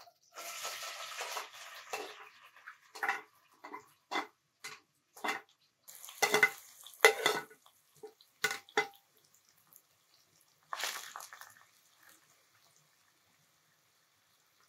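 Chopped raw onions sliding from a metal tray into a stone-coated pot, then a plastic spatula scraping and knocking the rest off the tray: about a dozen sharp taps and scrapes, the loudest in the middle, with one more short pour later and near quiet at the end.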